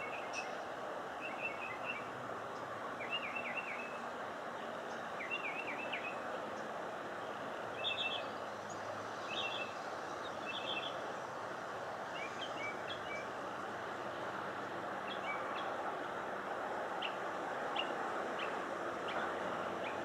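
Small songbird chirping in short runs of quick high notes every second or two, thinning to scattered single notes in the second half, over steady background noise.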